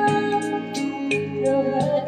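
Karaoke backing music playing: held keyboard-like chords over a steady beat of about three strokes a second, with no voice singing over it.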